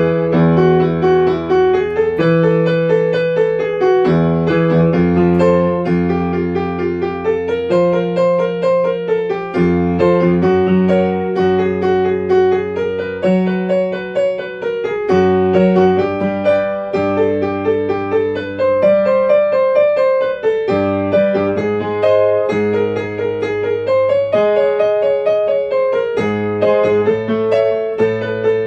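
Yamaha upright piano played solo without pause: a melody moving up and down over lower bass notes that change every second or two.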